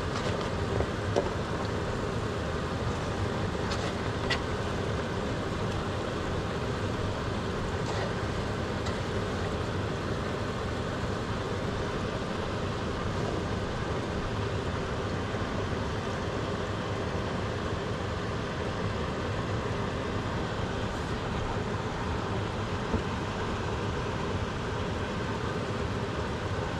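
Steady rushing noise of stove-top cooking at a gas range, with a few light clicks in the first few seconds and once more near the end.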